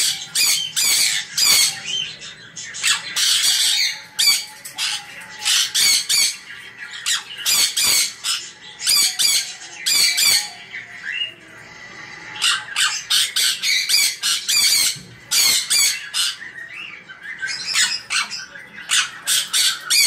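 A flock of sun conures screeching: many short, harsh, shrill calls in quick succession, often overlapping, with a brief lull about eleven seconds in.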